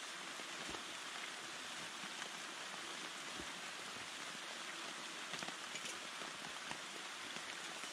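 Steady rain falling, an even hiss with scattered individual drops ticking.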